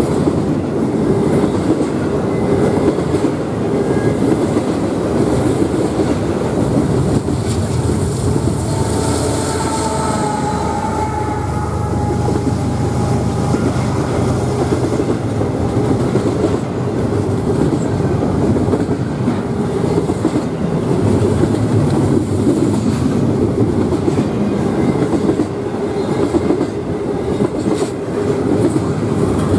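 Double-stack intermodal well cars of a freight train rolling past, with a steady loud rumble and clatter of steel wheels on the rail joints. A faint wheel squeal rises briefly about a third of the way in.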